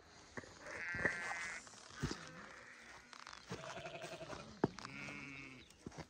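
Sheep bleating in a grazing flock: a high-pitched bleat about a second in, then several more bleats, some lower and some higher, in the second half, with a few sharp clicks between them.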